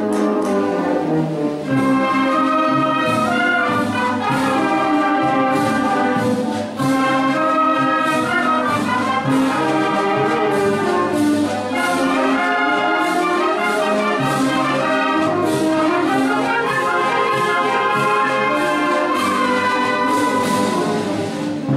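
A Spanish wind band plays a pasodoble. Trumpets and trombones carry the melody over a steady march beat of about two strokes a second.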